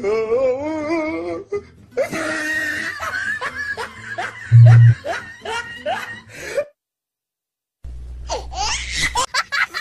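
Several people laughing, with a brief loud low hum about halfway through. The laughter breaks off for about a second of silence around seven seconds in, then starts again.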